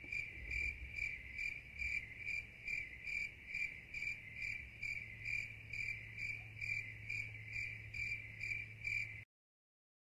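Insect chirping, a steady high trill pulsing about three times a second, over a faint low hum; it stops abruptly about nine seconds in.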